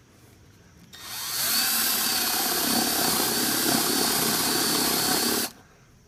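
Cordless drill with a spade bit boring into the pine wall of a wooden beehive, drilling a blind hole for a half-inch dowel. It starts about a second in, spins up, runs steadily under load for about four seconds and stops abruptly.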